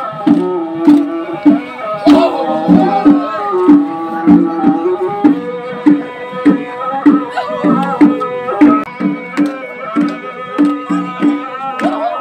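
Dimasa folk dance music: a pitched drum beats a steady, quick rhythm under a held, slightly wavering melody line.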